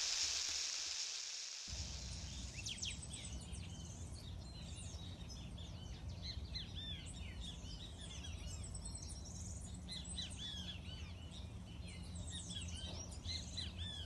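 A hiss fades out over the first two seconds. Then many small birds chirp and sing in quick overlapping calls over a low steady rumble.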